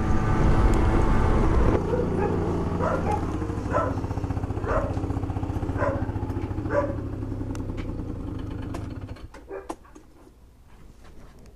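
A CPI Aragon GP 50 scooter's 50cc two-stroke engine slows from riding to idle and is switched off about nine seconds in, leaving a few clicks. A dog barks about five times, about once a second, in the middle.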